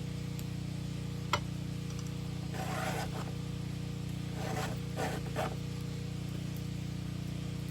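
Round file being pushed across the cutters of a chainsaw chain during hand sharpening, in a few short scraping strokes. The strokes come in two groups, about three seconds in and again about five seconds in. There is a single sharp click about a second in, and a steady low hum underneath throughout.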